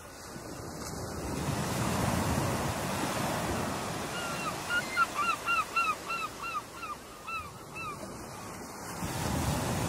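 Ocean surf: waves breaking and washing, swelling up twice. In the middle a bird gives a rapid series of about a dozen short, downward-hooked calls, louder than the surf.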